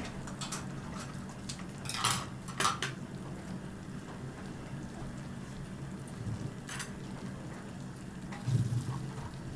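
Utensils clinking against a cooking pot and dishes a few times, over a steady low hum.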